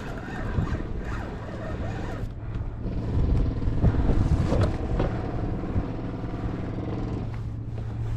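A motorboat engine running with a steady low hum. A stronger engine drone joins about two and a half seconds in and drops away shortly before the end.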